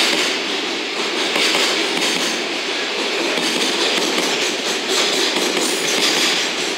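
Loaded container wagons of a freight train rolling past at speed: a steady rush of wheel-on-rail noise with a clatter of wheels over the rail joints.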